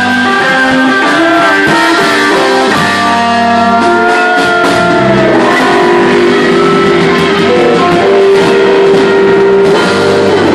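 Live blues band playing: electric guitars over a drum kit, with long held notes, some bending in pitch.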